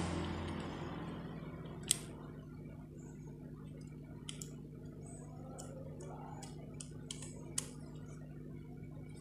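Scattered light clicks and taps of a small screwdriver and hard plastic parts as screws are undone from a toy RC off-road car's chassis, the sharpest click about two seconds in, over a low steady hum. A rush of noise fades away in the first second.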